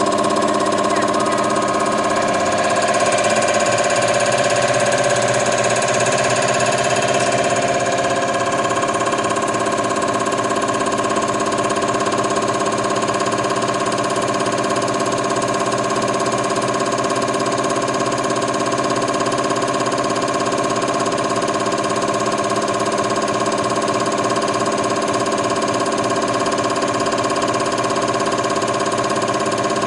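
XNS300 common rail injector test bench running: its drive motor and high-pressure pump hum steadily with several fixed tones while it holds 100 MPa rail pressure for the injector's emission-point test step.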